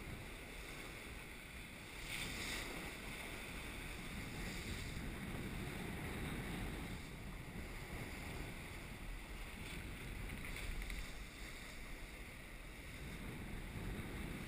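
Wind rumbling on the microphone and water rushing along the hull of a yacht under sail through choppy sea. There is a brief louder hiss about two seconds in.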